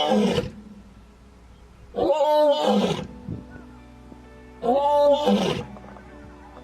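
A large animal calling over and over: the end of one call, then two more about two and a half seconds apart, each about a second long and rising then falling in pitch.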